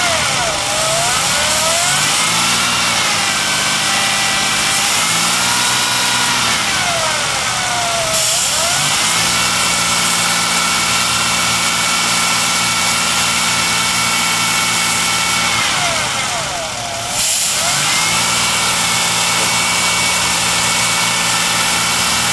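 Car engine running at a fast idle, typical of a vacuum leak. Its speed sags and climbs back several times in the first eight seconds, then holds steady. It dips once more briefly about seventeen seconds in.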